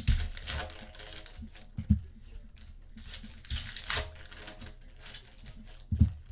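Trading-card pack wrappers being handled and torn open: crinkling and tearing of foil packaging, with a few dull thumps near the start, about two seconds in, and near the end.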